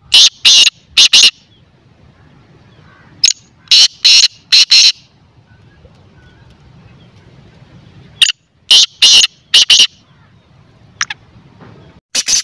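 Caged francolin (teetar) calling loudly: three phrases of four or five sharp, high notes each, a few seconds apart, with a couple of fainter single notes near the end.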